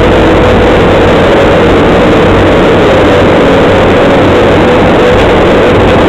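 Bobcat skid-steer loader's engine running steadily as the machine drives, heard loud from inside the operator's cab, a low drone with a steady whine riding over it.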